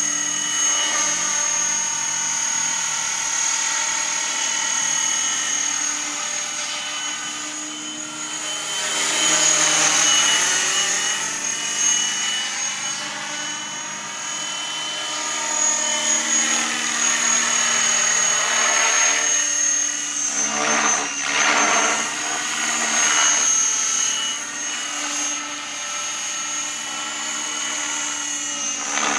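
Align T-Rex 550E electric RC helicopter in flight: a steady high motor and gear whine with rotor blade noise, its pitch sweeping up and down as it moves, swelling louder as it comes close about ten seconds in and again from about sixteen to twenty-three seconds.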